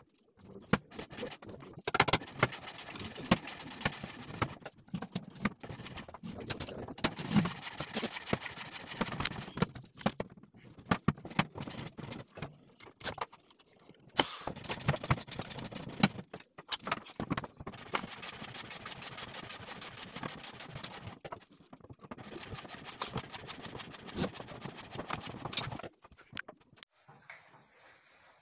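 Metal rattling, scraping and knocking from kitchen cabinet wire baskets and drawer fittings being handled and fitted, in spells broken by short pauses.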